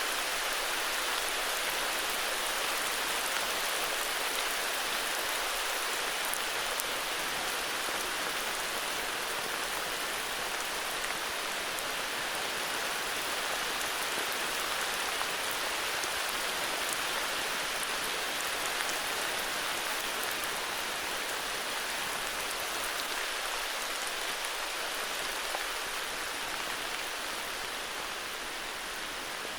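Heavy rain falling steadily, a dense hiss with faint scattered drop ticks, easing slightly near the end.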